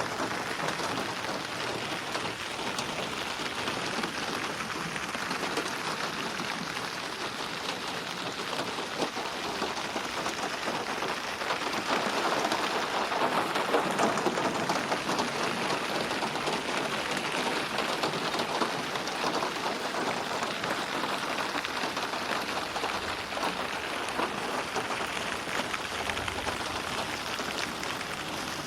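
Steady rain falling with pattering drops, processed as 8D audio so it seems to move around the listener. It swells a little louder about halfway through.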